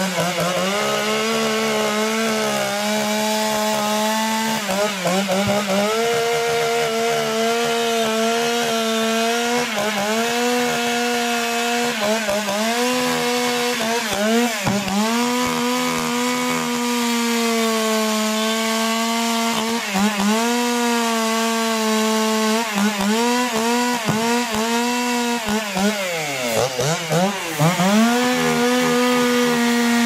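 Two-stroke chainsaw running at high revs while it cuts into a log, carving the wood. Its pitch drops and climbs back several times, with the deepest drop a little before the end.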